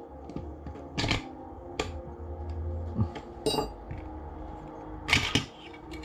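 Parts of a Specna Arms E-14 airsoft rifle being handled during disassembly: a scattered series of plastic and metal clicks, knocks and clatter, with one short ringing clink about halfway through and the loudest knocks about five seconds in.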